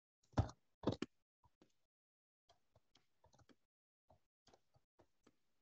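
Faint typing on a computer keyboard: two louder key clicks in the first second, then a run of light, uneven keystrokes.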